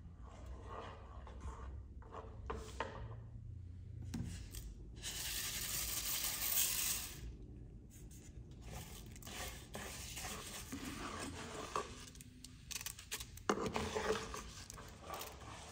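Hot fat sizzling in a frying pan as orzo is stirred in it with a wooden spatula, which scrapes and taps against the pan. The sizzle is loudest in a burst about five seconds in.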